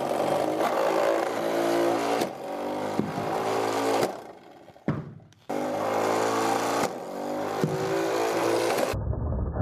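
Hooded flywheel shooter's 6000 RPM bare motor driving a 96 mm wheel at about 1,100 RPM: a steady motor whine that runs for about four seconds, stops, and starts again about a second and a half later. A few sharp knocks sound as the wiffle ball is fed through and launched.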